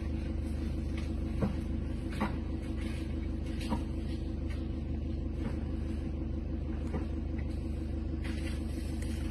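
Steady low rumble of a vehicle engine idling, with a few sharp cracks scattered through it as two fighting elephants break branches in a tree.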